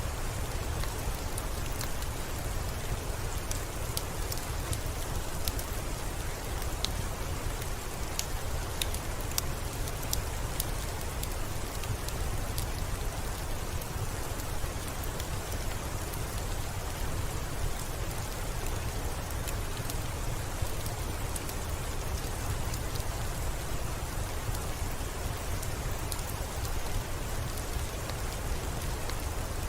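Steady rain: a dense, even hiss of falling drops over a deep low rumble, with scattered sharp ticks of single drops.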